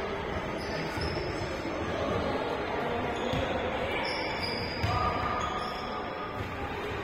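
Court noise at a korfball game: spectators' and players' voices mingling, with a ball bouncing and a few short squeaks past the middle.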